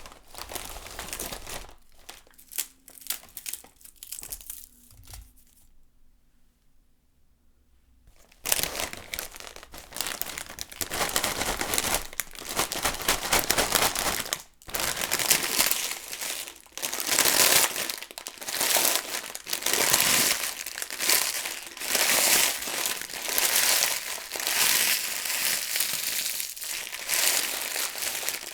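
Lay's potato chips rustling and crackling in a bowl as they are stirred. There are a few scattered rustles first, then a brief pause, then dense, continuous crinkling from about eight seconds in.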